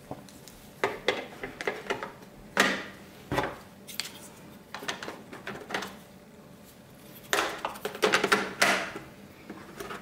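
Hard plastic clicks and knocks as a main roller brush is seated in the underside of a Lenovo T1 Pro robot vacuum and its snap-in brush-cover frame is fitted and pressed home. The clicks come in scattered clusters, busiest near the end.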